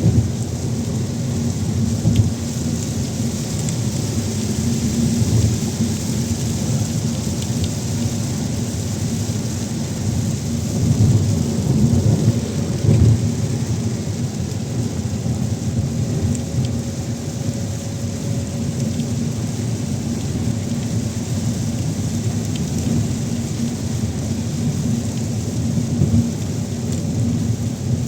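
Steady rain falling, with a heavy low rumble underneath that swells for a couple of seconds around the middle.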